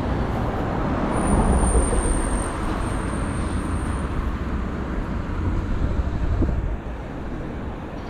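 Road traffic on a city street: a steady rumble of passing vehicles, with a thin high-pitched whine for about three seconds starting a second in, and the rumble easing off near the end.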